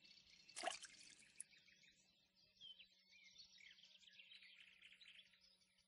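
Faint birds chirping, with one brief sharper sound just under a second in and a steady low hum underneath.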